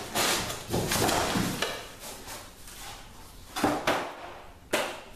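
Cardboard packaging rustling and scraping as it is pulled out of a toilet's shipping box, with two sharp knocks near the end.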